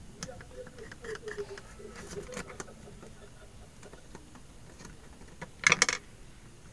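Small clicks and rattles of a screwdriver and plastic parts being handled while a hair straightener is taken apart, then one loud scraping crackle lasting about a third of a second near the end.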